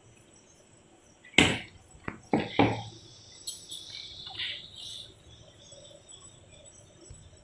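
Four sharp knocks as a steel mixer-grinder jar is handled, then a soft hiss of ground rice flour sliding out of the jar into a plastic bowl for about two seconds.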